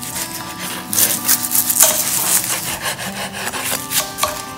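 Kitchen knives chopping scallions and mint leaves on cutting boards: a quick, uneven run of blade taps and scrapes against the boards.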